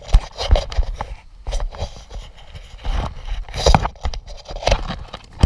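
Irregular heavy thumps and rustling scrapes from a camera being jostled against the wearer's body and clothing as they move. The hits come at uneven intervals, about once or twice a second.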